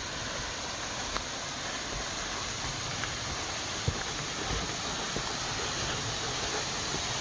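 Steady rushing splash of a small waterfall spilling off a rock ledge, growing slightly louder, with a few faint ticks on top.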